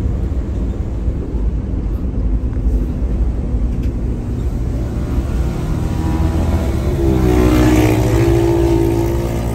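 Low, steady vehicle engine rumble. About six seconds in, a louder engine note rises in pitch, then holds steady for a couple of seconds before fading near the end.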